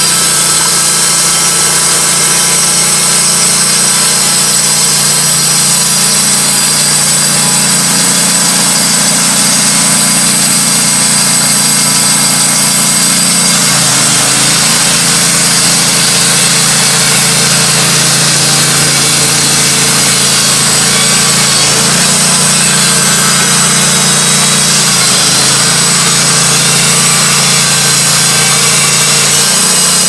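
Wood-Mizer LT15 Go band sawmill running, its band blade cutting through a hemlock log. The engine's steady drone drops a little about halfway through and dips briefly twice more, as the cut loads it.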